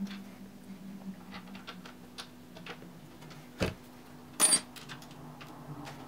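Small metallic clicks and ticks of screws and hardware being handled while fans are fitted to a PC water-cooling radiator, with a knock about three and a half seconds in and a louder metallic clatter a second later. A faint steady low hum sits underneath.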